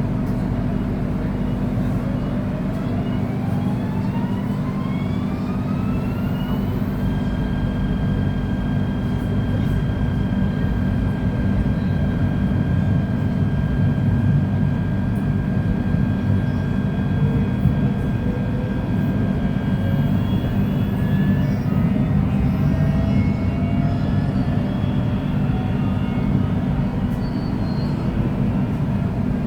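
Electric multiple unit train, KTM Class 92 set SCS 03, pulling away. Its traction inverter whine rises in pitch over about five seconds, then holds a steady high whine that stops about two-thirds of the way in. A constant rumble of wheels on rail runs underneath.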